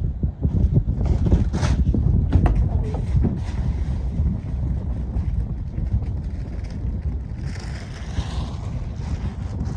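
Wind buffeting the microphone, a heavy, uneven low rumble, with a few sharp knocks in the first few seconds and a brief hiss near the end.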